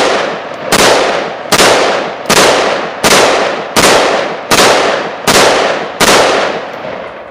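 A 10.5-inch AR-15 pistol firing .223 ammunition in steady semi-automatic fire, a shot about every three-quarters of a second, eight shots in all, each loud report echoing away. The pistol cycles each round here despite its trouble with lower-pressure .223 loads. The firing stops about six seconds in.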